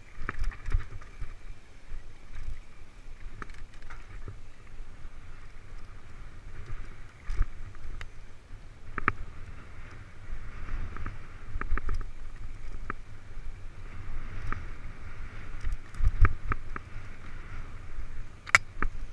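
A mountain bike descending a rocky dirt trail, heard from a helmet-mounted camera. There is a steady low wind rumble on the microphone, and the bike rattles and knocks as it rolls over rocks and ruts, with one loud sharp crack near the end.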